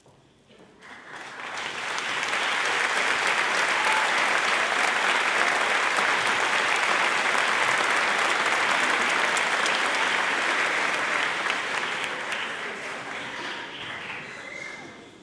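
Audience applauding in a theatre. The clapping builds up over the first two seconds, holds steady, and dies away near the end.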